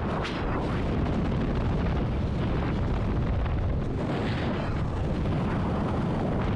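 Wind rushing hard over the camera microphone during a skydiver's freefall: a dense, steady, deep rumble.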